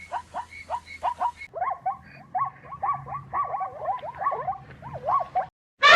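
A rapid run of short, pitched animal calls from several animals at once, overlapping, about four or five a second, breaking off just before the end.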